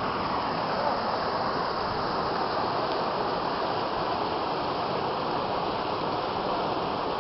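Steady rush of stream water flowing among granite boulders, an even noise without breaks.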